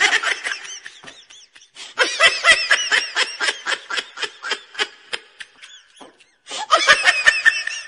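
High-pitched laughter in three bursts of quick, repeated laughs, breaking off twice into brief silence.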